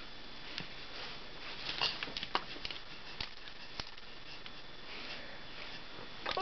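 A baby's quiet sounds between coos: faint sniffs and small mouth clicks, with a brief soft vocal sound about two seconds in.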